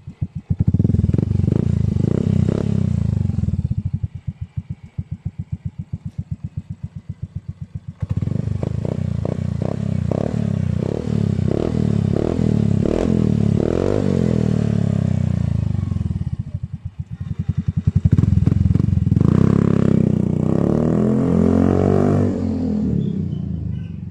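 Yamaha Mio i 125 scooter's single-cylinder engine running through an Apido Powerpipe racing exhaust with the silencer removed. It is revved up several times, dropping back between revs to an idle with a loud, even popping beat, and the revs die away near the end.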